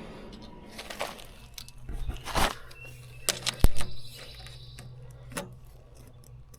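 A handful of scattered knocks and clicks, the sharpest a little over three and a half seconds in, over a low steady hum.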